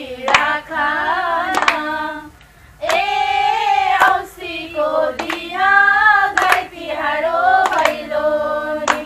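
A group of women singing a Deusi-Bhailo festival song together in unison, in sung phrases with a short break about two and a half seconds in. Single hand claps keep time, about one a second.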